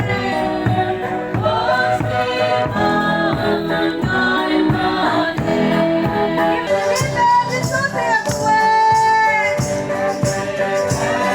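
Music: voices singing a song over a steady beat.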